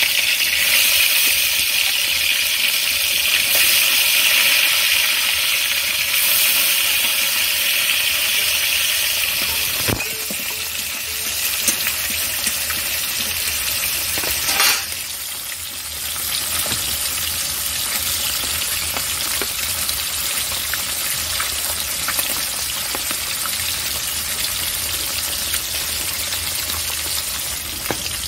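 Pieces of silver carp sizzling steadily in hot oil in a steel wok. There is a brief clatter about halfway through.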